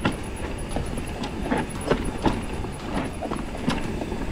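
Mountain bike rolling over rough rock, with irregular clunks and rattles from the bike and a steady low rumble underneath.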